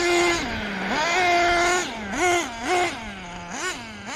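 HoBao Hyper VS2 RC buggy's small nitro glow engine revving: held at high revs, dropping back about half a second in, climbing again, then a run of short throttle blips near the end. The owner feels the engine is set a bit rich on the low-speed needle.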